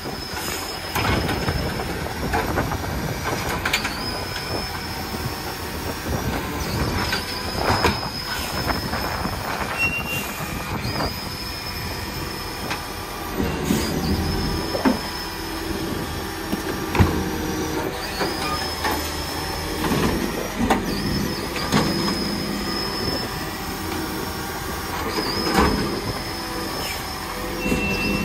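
Automated side-loader recycling truck working a row of wheelie bins: the engine runs while the arm grabs, lifts and tips the bins, and the load of recyclables crashes into the hopper. A high squeal comes back again and again, a few seconds apart, each time opening with a short rising glide. Sharp knocks and thumps come as bins are tipped and set back down.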